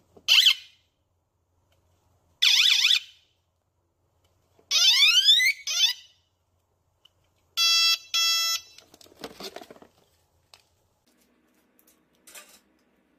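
Battery-powered electronic bicycle horn sounding its different tones as its button is pressed: a short falling chirp, a swooping chirp, a rising siren whoop, then two short beeps. Soft handling clatter follows near the end.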